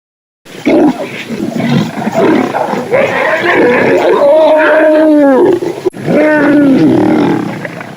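Lion roaring, with a brief break about six seconds in.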